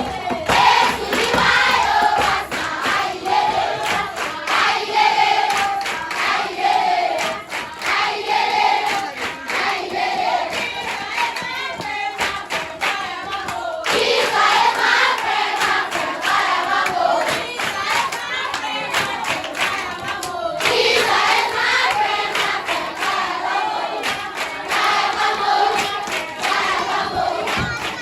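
A group of voices singing a song together, with hand clapping.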